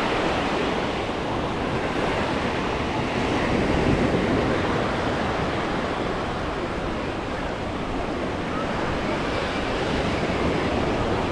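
Small waves washing onto a sandy beach: a steady rush of surf that swells a little about four seconds in.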